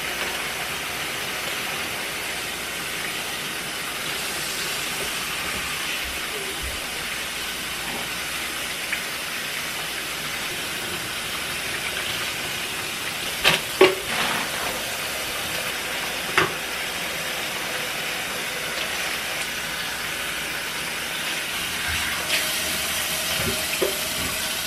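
Kitchen faucet running steadily into a stainless steel sink as raw tilapia fillets are rinsed under the stream. A few sharp knocks sound near the middle, two close together and one a couple of seconds later.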